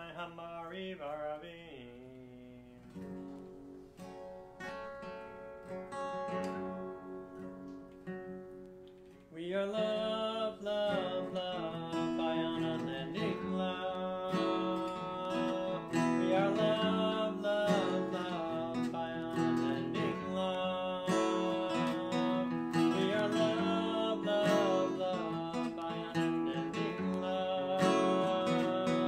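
Acoustic guitar playing an instrumental passage. It is soft and sparse at first, then from about nine seconds in it is strummed louder and steadily.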